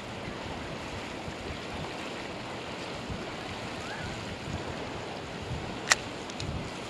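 Steady wind buffeting the microphone over the wash of sea waves against a pier, with a single sharp click about six seconds in.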